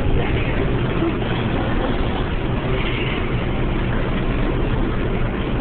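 New York City subway R142-family train standing at a station platform, doors open, with the steady hum and rumble of its onboard equipment.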